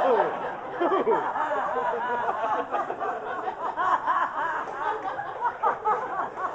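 Live audience laughing and chuckling, many voices overlapping.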